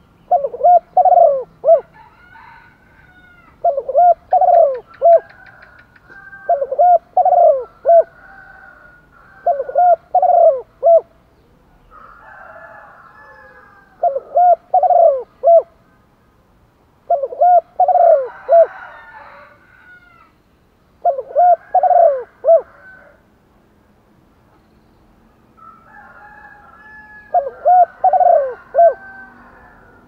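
Caged decoy spotted dove cooing: eight short phrases of three or four coos each, about one every three seconds, the call used to lure wild spotted doves. Faint higher bird calls sound between the phrases.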